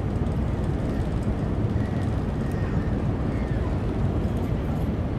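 Steady low rumble aboard a car ferry, with faint gull calls about two seconds in and again a little over a second later.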